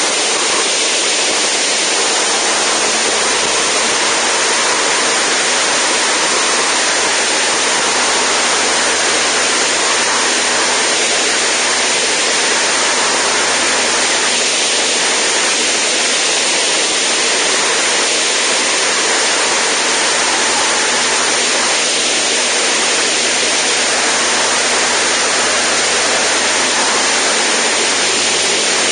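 Zenith STOL CH750 light aircraft in low, level flight: a steady rush of wind over the outside-mounted camera, with the engine and propeller running steadily underneath.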